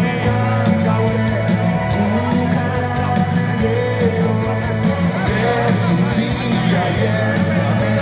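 A live rock band playing: electric guitars, bass and drum kit with a lead singer, the drums keeping a steady beat under a sung melody.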